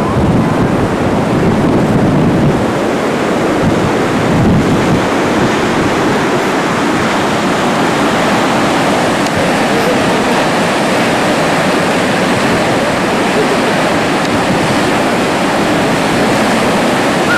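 Steady rush of the Niagara River's rapids and falls, with wind buffeting the camcorder's microphone, most strongly in the first few seconds.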